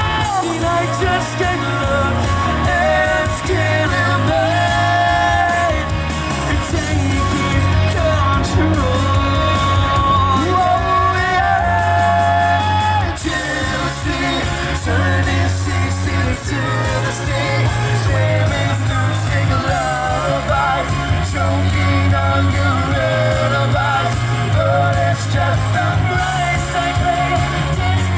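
A live rock band playing, with sung melody and some shouting over a steady bass and drum beat.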